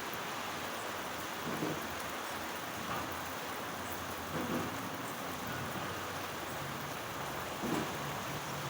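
Steady rain falling, an even hiss with a few louder splashes of drops now and then.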